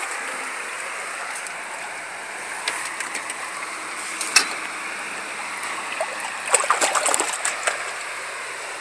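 Steady rush of river current along a concrete wall. A sturgeon splashes at the surface: one sharp splash about four seconds in, and a quick run of splashes around seven seconds.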